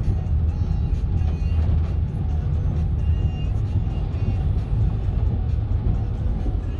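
Steady low rumble inside a car in a severe storm, storm wind and rain buffeting the car, with music playing underneath.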